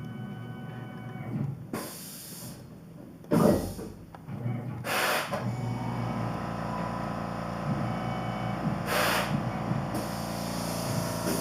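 Tormach PCNC 1100 CNC milling machine running, its spindle and drive giving a steady whine that settles into a constant tone about halfway through. Several short hissing bursts of spray break over it, the loudest about a third of the way in.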